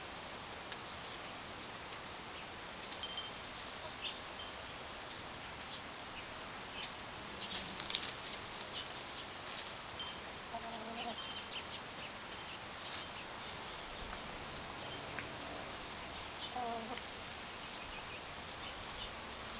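Chickens foraging in dry dirt and leaves: scattered light pecking clicks and scratching rustles over a steady hiss, with a few soft, short clucks.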